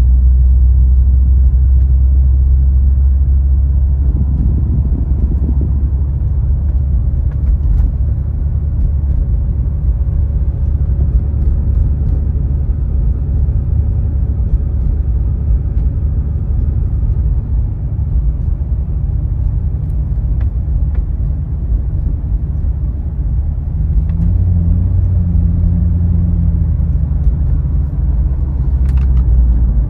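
2008 Chevrolet Corvette's V8 running steadily at low revs while cruising, heard from inside the cabin as a deep, even drone. The note firms up slightly for a few seconds near the end.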